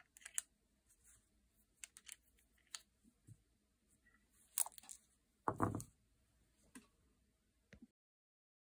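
Small metallic clicks and rattles of brass .38 Super cartridges being handled at the swung-out cylinder of a Smith & Wesson .357 Magnum revolver, with a louder, duller knock a little past halfway. The sound cuts off abruptly near the end.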